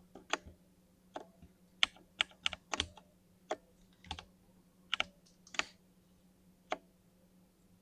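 Keys pressed one at a time on a 60% mini mechanical keyboard with lubed linear switches: about a dozen separate keystrokes at an uneven pace, the last a second before the end.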